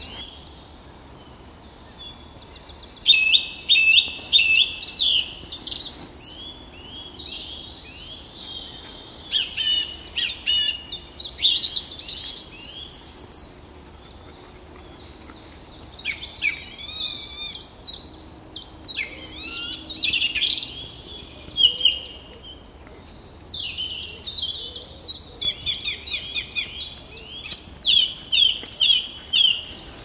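Woodland songbirds singing: short bright phrases of quick repeated notes, coming in bursts one after another with brief pauses between them.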